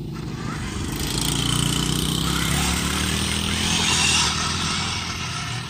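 Large-scale RC car's motor running hard on a dirt track, revving up and down. It gets louder as the car comes close and slides through the loose dirt about four seconds in, then fades.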